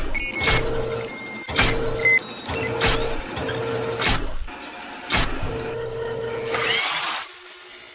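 Sound effects for an animated robotic-arm logo sequence: a series of sharp mechanical hits, about seven, with a steady machine hum between them that breaks off at each hit. Near the end comes a rising whoosh with upward-gliding tones, then it fades out.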